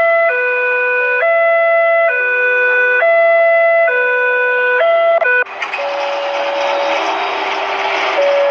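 A multi-tone siren playing a stepped melody, its chord of tones jumping to a new pitch about every three-quarters of a second. About five seconds in it breaks off and gives way to a loud rushing noise with a couple of held tones over it.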